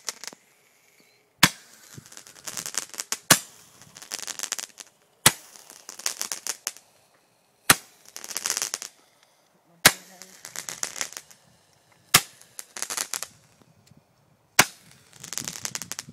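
A repeating consumer firework going off, with a sharp bang about every two seconds, seven in all, each followed by about a second of crackling hiss.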